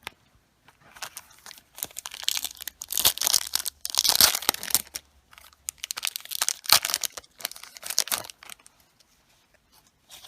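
A Digimon trading-card booster pack wrapper being torn open and crinkled by hand, in bursts of crackling and ripping that are loudest a few seconds in and die away near the end.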